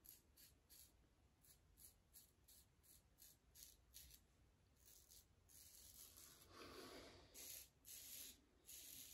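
Faint scraping of a Rockwell Model T double-edge safety razor cutting lathered stubble on the neck. It starts as short quick strokes, about three a second, then turns to longer, louder strokes from about five and a half seconds in.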